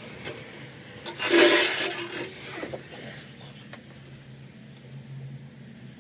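A short, loud scrape about a second in as a diesel air heater unit is slid into place on a plywood van floor, followed by lighter handling knocks, over a steady low hum.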